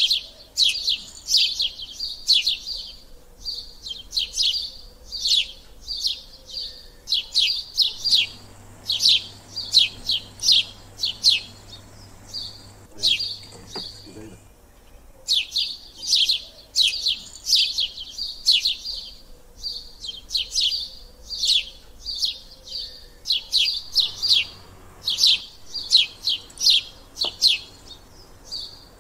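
Small birds chirping: rapid runs of short, high chirps, several a second, coming in bursts of a few seconds with brief pauses between.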